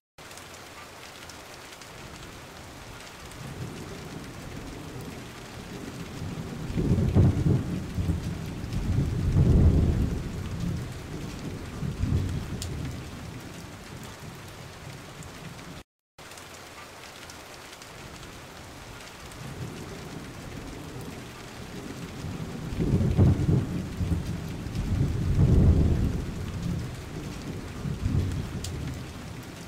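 Rain and thunder ambience: a steady rain hiss with two low rumbles of thunder swelling and fading, then the same stretch repeating after a brief dropout about halfway through.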